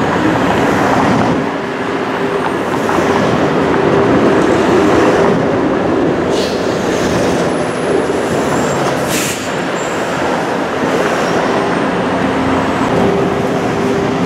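TTC streetcar running along its street track, heard from inside the car: a steady motor hum over the rumble of the wheels on the rails. A couple of brief high squeals come around the middle.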